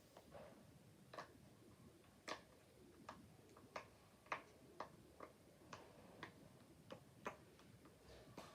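Silicone push-pop fidget toy (poppet) with its bubbles pressed one after another on its "good side", giving a run of soft, quick pops about every half second.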